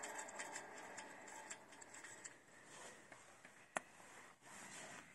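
Faint handling sounds as a hand touches and turns a barbell's steel sleeve, with a few light ticks and one sharp click near the end.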